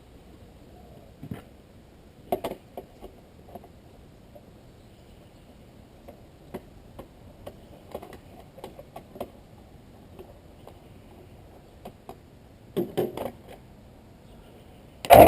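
Scattered light clicks and taps from handling an air-conditioner disconnect and its fuses, with a few sharper clacks about two seconds in and again near the end. A loud clatter comes right at the close.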